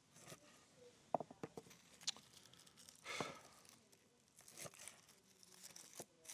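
Faint crinkly rustling and a few light clicks and taps as trimmed shallots with dry, papery skins are handled.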